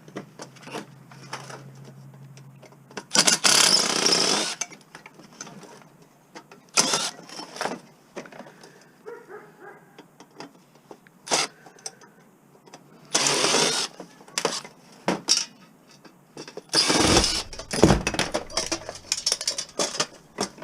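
Metal knocks and clatter from a stainless-steel medical ozone unit being taken apart for scrap, with four loud noisy bursts of about a second each and scattered sharp clicks between them.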